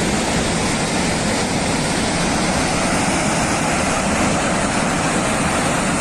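Steady roar of rushing floodwater, an even rushing noise with no breaks.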